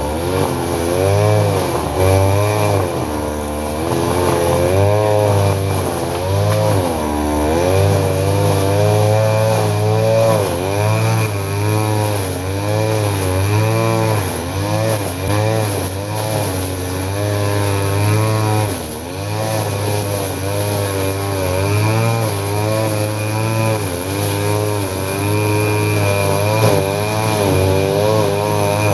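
Gasoline brush cutter's engine running while cutting tall grass, its pitch rising and falling about once a second as the throttle is worked and the line meets the grass.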